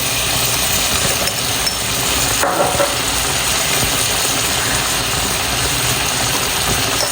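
Goat meat frying in oil with onion and spices in a pan, sizzling steadily while it is stirred, with one short knock about two and a half seconds in.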